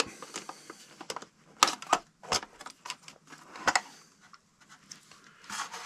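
Light clicks and taps as the plastic shell of a Menards O gauge F3 model locomotive is worked free and the chassis lifted out by hand, a handful of sharper clicks among softer handling noise.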